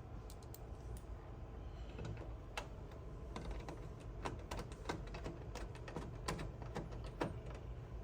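Light, irregular clicks and taps of a screwdriver and small screws being worked into a console screen's mounting holes, coming thicker from about two and a half seconds in.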